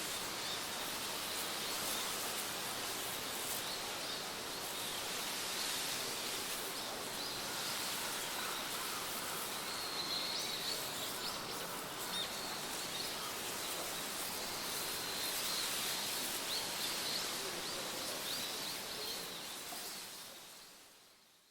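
Outdoor ambience: a steady hiss of background noise with faint, brief chirps, like distant birds, scattered through it, fading out at the end.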